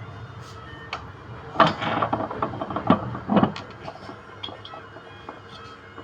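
Knocks and clatter of washing machine motor parts being handled during repair. The knocks are loudest in a burst from about one and a half to three and a half seconds in, with scattered lighter clicks around it.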